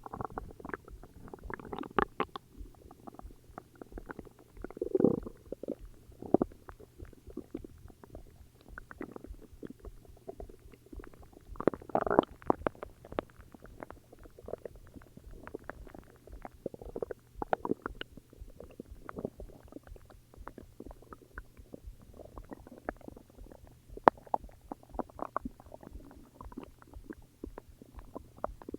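A person's stomach growling and gurgling: an irregular run of small pops, clicks and gurgles, with louder, longer gurgles about 2, 5 and 12 seconds in.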